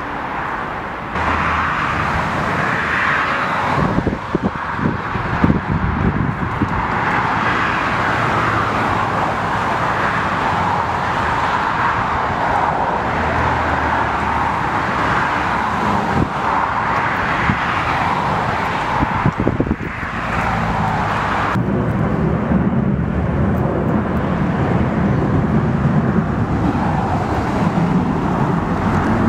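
Twin-engine jet airliners landing one after another: a steady rush of jet engine noise. The sound changes abruptly about a second in and again about three quarters of the way through, where one landing clip gives way to the next.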